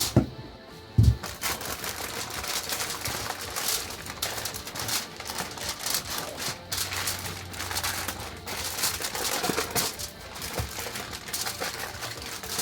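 Busy handling noise: rapid, irregular clicking and crinkling, with one heavy thump about a second in.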